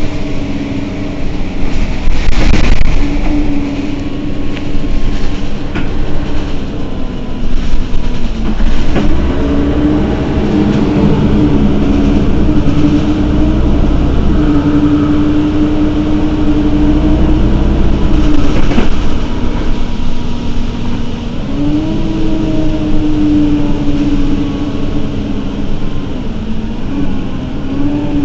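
Mercedes-Benz Citaro city bus's engine idling at a stop: a steady hum that rises in pitch a few times and drops back. There are two short hisses, about two seconds in and again at about nineteen seconds.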